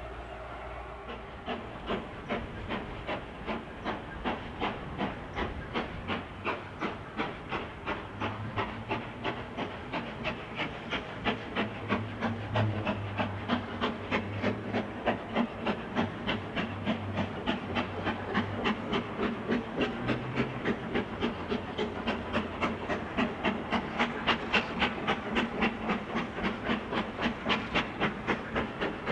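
GWR King class four-cylinder 4-6-0 steam locomotive No. 6024 King Edward I starting away with a heavy train. Its chimney exhaust beats come evenly and quicken steadily, from about two a second to three or four, and grow louder as it works harder.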